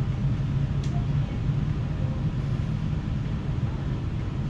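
Steady low hum and rumble inside an electric passenger train rolling along the track, with a single short click about a second in.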